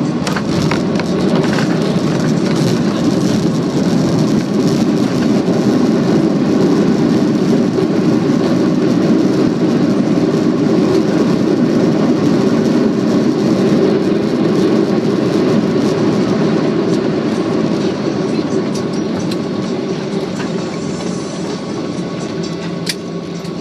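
Loud, steady cabin rumble of a Boeing 737-800 with CFM56 engines on landing, the jet's engine and airframe noise heard from a seat inside the cabin. It eases off gradually over the last several seconds as the plane slows.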